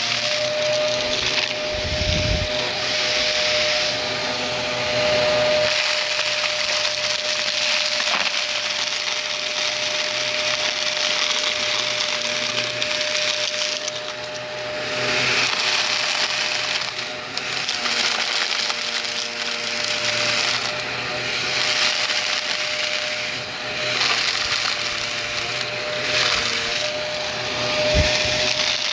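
Vacuum cleaner running with a steady motor whine while it sucks up crunchy debris, which crackles and rattles through the nozzle, the noise swelling and easing as it is moved. A couple of low bumps, about two seconds in and near the end.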